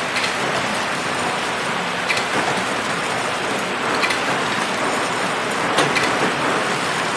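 Horizontal flow pack wrapping machine running: a steady mechanical hiss and rattle with a few sharp clicks.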